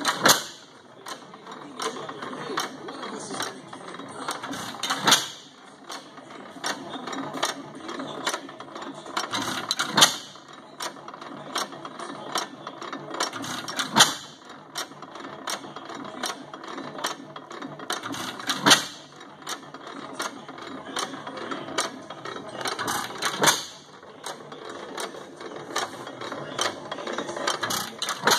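5 HP Sattley hit-and-miss gas engine running, firing with a sharp bang about every four and a half seconds and coasting between firings with fainter rapid clicking of its valve gear and governor mechanism. The long coasts between bangs are the governor holding it on 'miss' until the flywheels slow.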